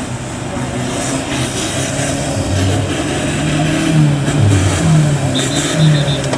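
Off-road 4x4's engine revving in repeated surges, the pitch climbing and dropping several times and getting louder through the second half.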